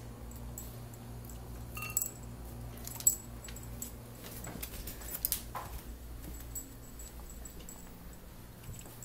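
Metal tags on a dog's collar clinking and jingling as the dog moves, in several short bursts, the sharpest about three seconds in, over a low steady hum.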